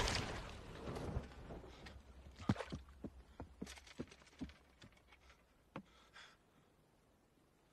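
Faint scattered knocks and creaks on a wooden sailboat, a dozen or so irregular clicks over a few seconds as a man climbs onto the bow among the rigging, after a crash fades away in the first second or so.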